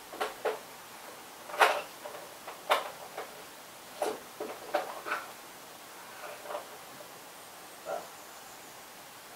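Irregular knocks and clatters of objects being picked up and put down while rummaging for tools, about a dozen light strokes, the loudest two about one and a half and nearly three seconds in.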